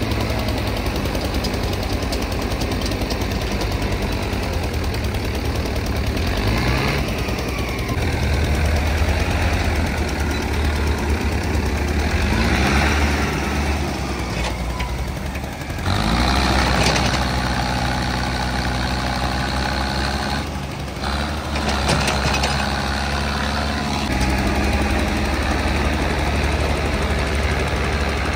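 Diesel tractor engines running hard under load, as in a tractor tug-of-war, with the pitch rising as they rev up several times, about six, twelve and sixteen seconds in.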